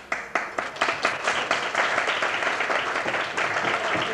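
Guests applauding: a few separate claps at first, swelling within about a second into dense, steady applause.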